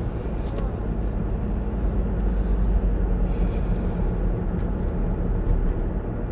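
Steady road noise of a car being driven, heard from inside the cabin: low engine hum and tyre rumble at an even speed.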